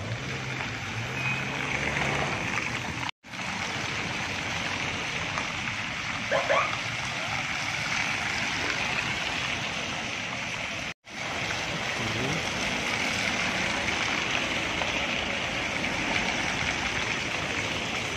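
Steady hissing rush of cars rolling slowly along a wet road, their tyres on the water-covered surface. The sound cuts out completely twice, briefly each time.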